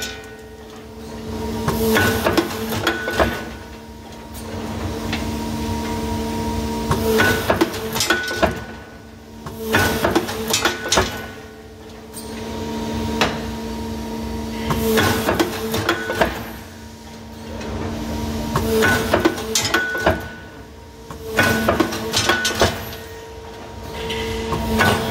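APS RPS-504 multi-head punching line punching holes in a steel strip at high speed. Clusters of rapid metal-on-metal punch strokes come every few seconds, over a steady machine hum.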